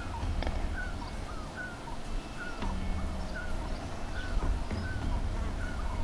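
Gulls calling: many short, bent cries, about two or three a second, over a steady low rumble.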